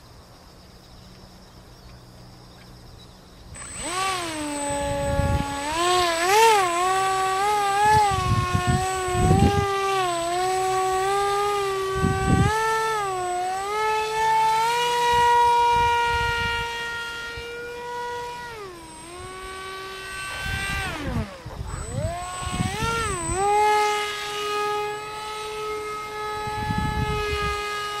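Electric motor and propeller of a small foam RC plane whining, coming in about three and a half seconds in and rising and falling in pitch with the throttle; the pitch drops sharply twice about two-thirds through, then climbs back and holds steady. Low rumbles of wind on the microphone now and then.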